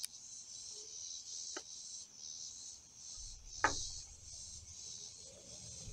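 Steady, pulsing chorus of insects, high-pitched. Over it come three short sharp clicks as a small cardboard product box is handled and opened, the loudest a little past the middle.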